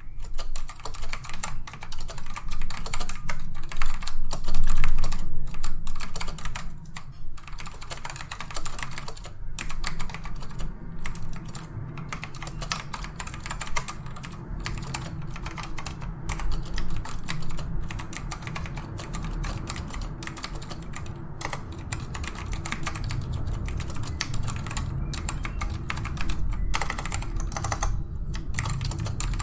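Fast, continuous typing on a Dell AT102W mechanical keyboard with black Alps switches: a dense, uneven patter of key strokes. The switches are tactile rather than clicky.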